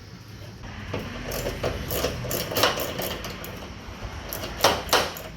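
Socket ratchet clicking in uneven runs while it works a 10 mm hood-latch bolt, with two sharper clicks or knocks near the end.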